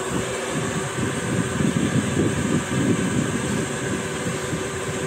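Electric pedestal fan running close by: a steady whirring rumble of moving air with a faint motor hum.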